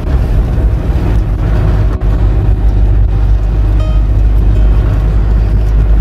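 Steady low rumble of a vehicle driving along a paved road, with background music over it.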